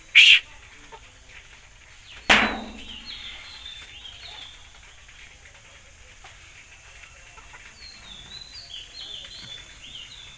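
Chickens in a coop: a short, loud squawk right at the start and another loud, sharp sound about two seconds in, followed by soft, high chirps, with more high chirping near the end. No crowing.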